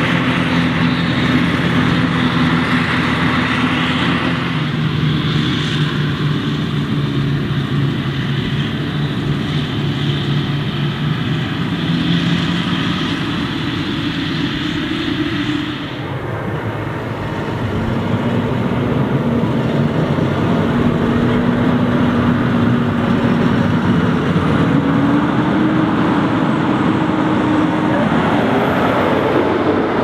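Claas Jaguar 950 forage harvester running steadily while chopping maize, with a tractor hauling the trailer alongside. About halfway through, the sound changes to a tractor pulling a silage trailer along a lane, its engine note rising as it comes close.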